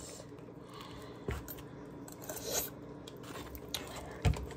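Forks stirring and scraping in foam Maruchan Instant Lunch noodle cups, with a few soft clicks and scrapes and a dull thump near the end.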